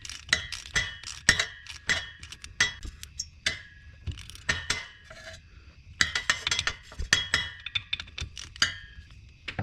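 Socket-wrench ratchet clicking in quick runs of sharp metallic clicks as the rear differential drain plug is run back in and tightened. There are two main runs, with a lull of a second or two between them.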